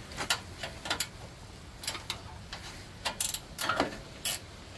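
Hand wrench working a 10 mm bolt on a snowblower's engine shroud: a scatter of sharp metallic clicks and clinks, irregularly spaced, some in quick pairs.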